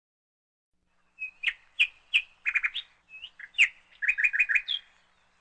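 A songbird singing two quick phrases of sharp chirping notes, the second ending in a fast run of repeated notes.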